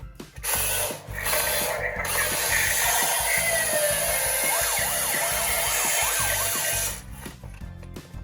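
Toy police cars rolling down a slope with a steady rushing rattle that stops suddenly near the end, while a toy siren sounds, its pitch sweeping quickly up and down. Background music plays underneath.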